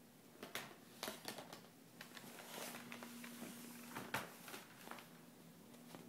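Faint, scattered clicks and taps, about half a dozen, over a low steady hum, with a brief soft hiss about two and a half seconds in.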